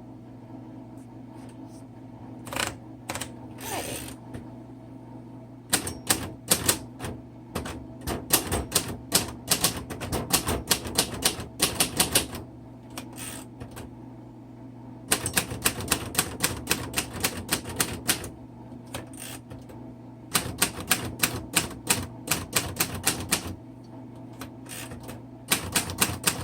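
A 1960 Royal Heritage portable manual typewriter being typed on: runs of quick keystrokes in several bursts, separated by pauses of a second or more. A steady low hum sits underneath.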